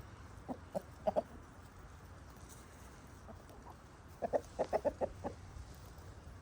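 Domestic hens clucking: a few short clucks about a second in, then a quick run of about seven clucks around four to five seconds in.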